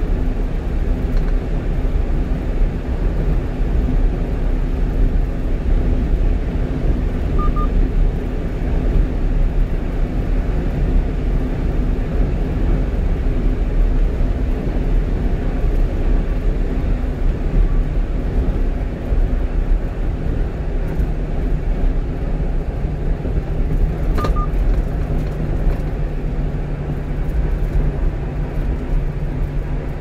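Steady road and engine noise inside the cab of a 1-ton truck cruising on an expressway, with a low hum that changes pitch about two-thirds of the way through. A short electronic double beep sounds twice, about 7 and 24 seconds in.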